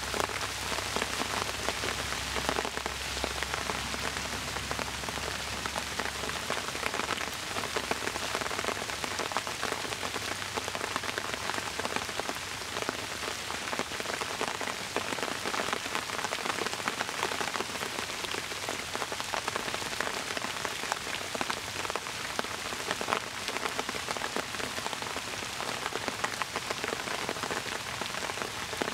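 Steady rain falling on bamboo leaves, a dense even patter of drops.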